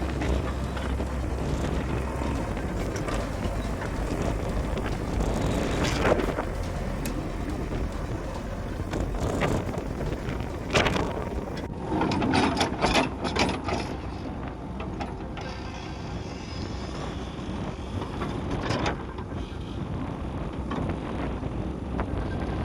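Diesel engine of a JCB backhoe loader running steadily during demolition of an encroachment, with several loud knocks and crashes as it breaks down structures, the densest cluster about halfway through.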